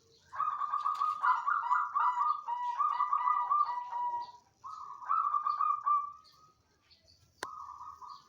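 Zebra dove (perkutut) cooing: a long phrase of quick rolling coos, a shorter phrase after a brief pause, and one short coo near the end, with a single sharp click just before it.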